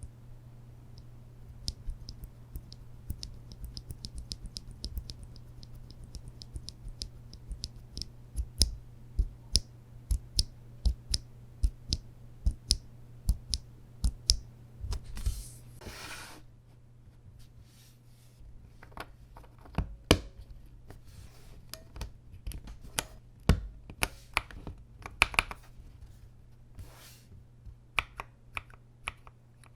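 Linear mechanical keyboard switches, unlubed Akko CS Radiant Reds and Gateron Blacks, pressed and released one at a time with sharp clicks as they bottom out and spring back. For a stretch in the middle the presses come steadily, about two a second. About halfway there is a brief scraping rustle, and a steady low hum runs underneath.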